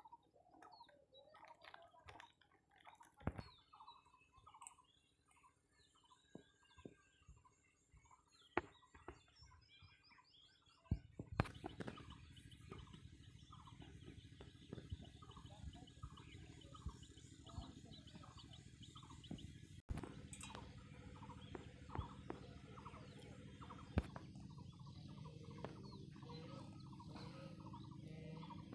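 Faint bird calls with a few sharp clicks and knocks. About eleven seconds in, the background turns to a steadier hiss full of rapid, repeated short calls.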